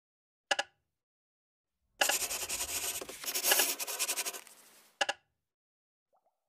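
A short, sharp ticking sound effect repeating about every second and a half. About two seconds in, a harsh scratchy noise starts, lasts nearly three seconds and fades out.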